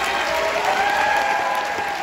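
Audience applauding at the end of a concert band piece, with a few held calls from the crowd above the clapping.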